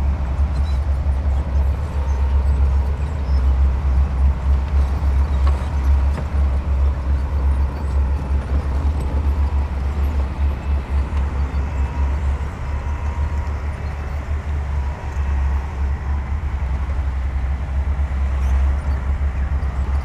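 Heavy diesel earthmoving machinery running: a steady, deep, pulsing engine rumble.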